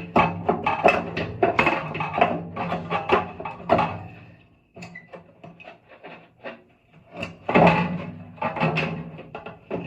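Metallic clinks, knocks and scrapes of hand tools and a gas water heater's pilot and burner assembly being worked loose inside the burner compartment.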